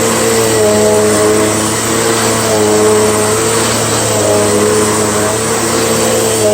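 Dirt Devil Powermax XL vacuum cleaner running on carpet: a loud, steady motor whine over a rush of air, its pitch wavering slightly.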